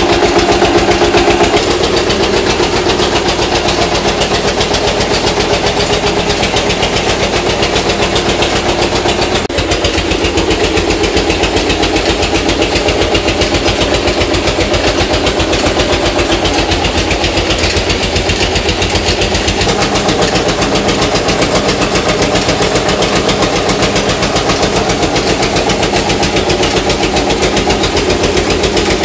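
Stationary diesel engine running steadily with a fast, even beat, driving a mustard oil expeller by flat belt.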